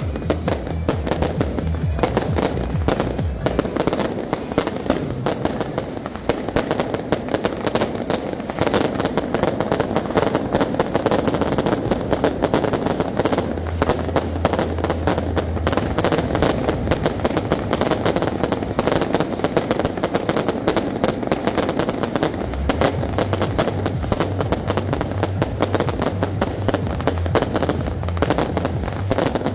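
A close-range barrage of aerial fireworks bursting overhead: a rapid, unbroken stream of bangs and crackling with no pauses.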